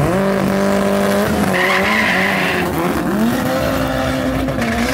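Drag-racing car engine held at high, fairly steady revs, dipping and climbing again about three seconds in, with a burst of tyre squeal from about one and a half seconds in.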